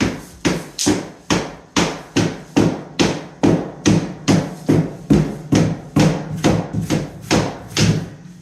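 Mallet striking a luxury vinyl plank over and over, a steady run of sharp knocks about two to three a second that stops near the end. The blows seat the plank's raised edge down into the joint of the neighbouring board.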